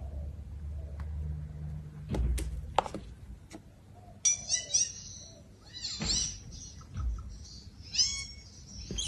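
A few sharp knocks, then from about four seconds in a series of short, high-pitched chirping calls from a small animal, some coming in quick runs.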